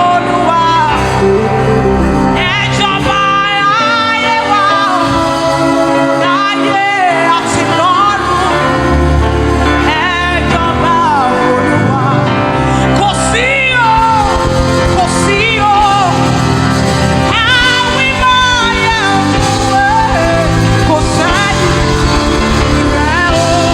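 Live gospel worship music: a woman's voice singing long, sliding vocal runs over steady band accompaniment.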